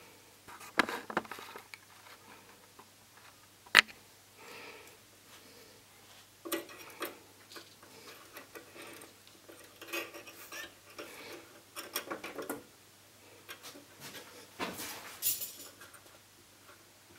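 Scattered light clicks, taps and handling rattles from fitting a CCFL backlight tube into its plastic holder clips in an LCD TV's backlight panel, with one sharp click about four seconds in.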